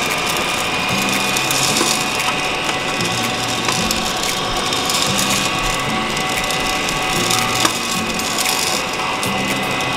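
Gene Cafe electric coffee roaster running just after start: green coffee beans rattle and tumble in its turning clear roasting chamber over a steady motor whine.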